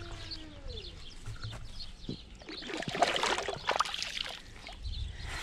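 Splashing at the water's edge as a red-tailed catfish is released into the lake and hands swish in the water, a cluster of splashes lasting about two seconds in the middle.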